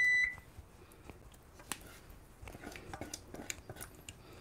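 A steady high electronic appliance beep cuts off about a quarter second in. Then come faint scattered clicks and scrapes of a spoon against a small saucepan as thick cherry filling is spooned out of it.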